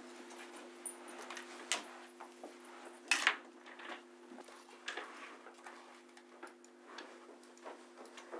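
Faint scattered clicks and small knocks of someone settling at an office desk and working at a computer, with one louder brief rustle about three seconds in. A steady electrical hum sits underneath.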